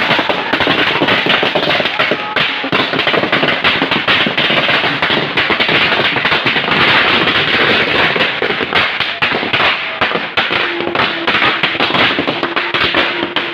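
A long string of firecrackers going off on the ground, a rapid, unbroken crackle of bangs.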